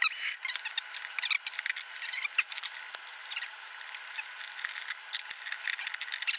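A hand brushing and scraping drill shavings across a laminated tabletop: a dense scratchy rustle with many small clicks.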